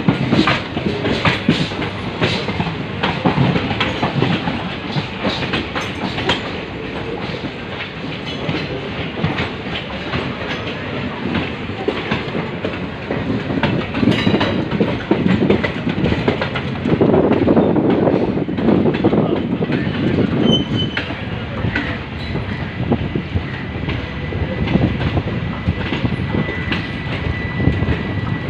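Indian Railways passenger train running, heard from an open coach doorway: a steady rumble with rapid wheel clatter over rail joints and points, louder for a few seconds past the middle. A faint steady high tone rings through the last few seconds.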